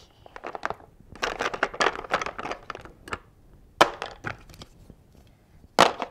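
Screwdrivers rattling and clacking in a clear plastic tool organizer as a hand rummages through it: a dense flurry of clatter in the first few seconds, then a few sharp single clacks.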